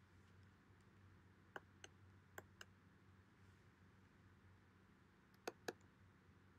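Near silence over a faint steady hum, broken by soft computer-keyboard keystrokes: four clicks about a second and a half in, then two quick clicks near the end.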